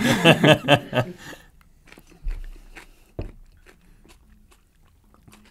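Pickled jalapeño slices being chewed: scattered soft crunches and mouth clicks, with two low thumps about two and three seconds in.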